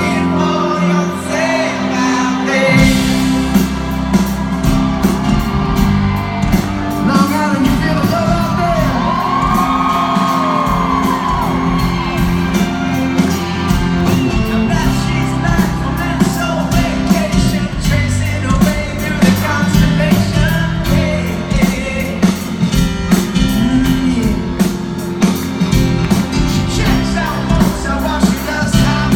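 Pop music with singing over a steady drum beat, with occasional shouts or whoops.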